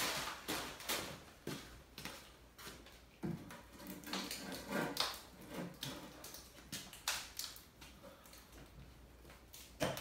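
Lightweight perlite concrete hive box knocking and scraping against another concrete hive body as it is set on top and shuffled into place to test the fit: a string of irregular knocks with gritty scrapes between them, a sharp knock right at the start.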